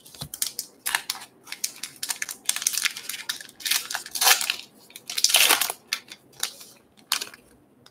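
A baseball card pack's crimped wrapper being torn open and peeled back by hand: a run of crinkling and ripping, with the loudest tears about two and a half and five seconds in.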